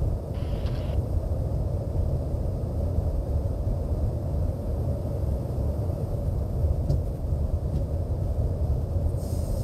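Steady low drone of engines and rushing air inside a refuelling tanker aircraft in flight, during air-to-air refuelling. There is a short hiss about half a second in and another near the end.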